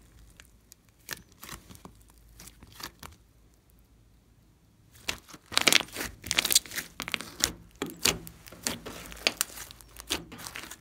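Glossy slime squeezed, stretched and pressed by hands, its trapped air popping and crackling. A few soft pops come first, then it goes nearly quiet for about two seconds, and a dense run of crackling pops starts about five seconds in.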